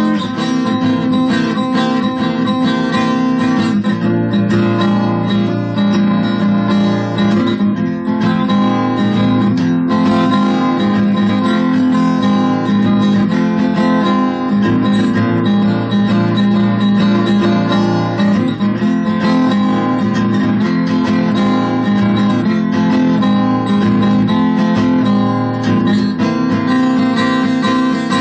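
Acoustic guitar strummed steadily, playing a blues tune with no singing.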